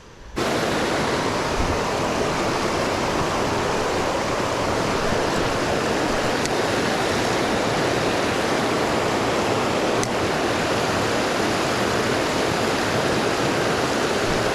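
Creek water rushing steadily over a riffle close to the microphone, starting abruptly about half a second in.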